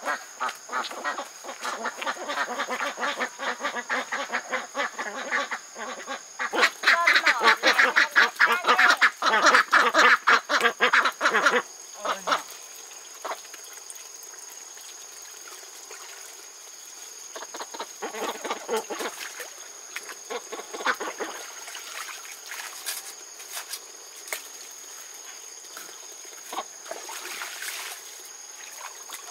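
A flock of domestic ducks quacking in rapid, overlapping chatter, loudest about a third of the way in, then dropping to scattered, quieter quacks.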